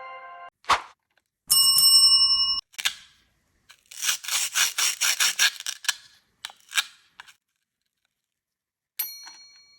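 Bell-like dings and sharp clicks: a ringing tone fading out at the start, a short chime about a second and a half in, then a quick run of about a dozen clicks and a few single clicks, and another ding near the end.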